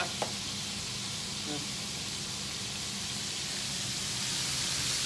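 Battered chicken pieces deep-frying in a pan of hot oil, a steady sizzle that grows louder toward the end. A light click sounds just after the start.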